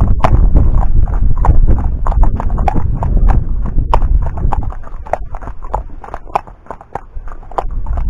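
A horse's hooves clip-clopping on a tarmac road at a walk: a steady rhythm of sharp hoof strikes, about three a second. A low rumble under them fades after about five seconds. The horse is an Irish Sport Horse.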